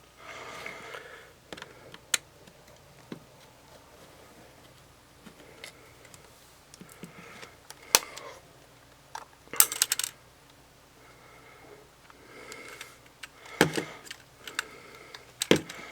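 Small screws being worked out of a camera body's base with a precision screwdriver: faint scratchy turning and handling, broken by a handful of sharp clicks and light metallic clatters a few seconds apart as the tool and loose screws are set down.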